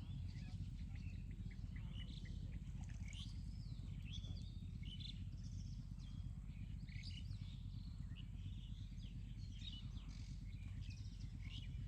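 Small birds chirping in many short, high calls throughout, over a steady low rumble.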